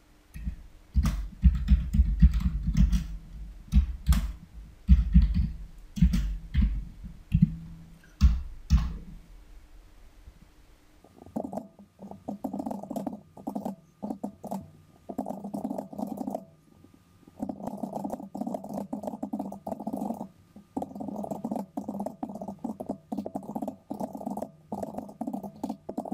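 Rapid typing on a computer keyboard, in bursts with short pauses. For about the first ten seconds the keystrokes are louder and deep-thudding; from about eleven seconds in they turn lighter and clickier.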